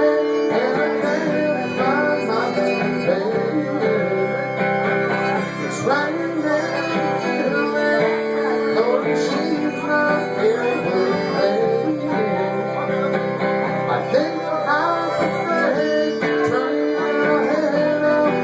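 Live country band playing an instrumental passage: guitars keeping the rhythm, with a lead line whose notes bend up and down over it.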